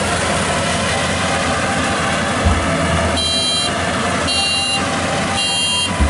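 Maxxi Bimo 102 rice combine harvester running, its engine a steady drone, with its reversing alarm giving three loud high-pitched beeps about a second apart in the second half.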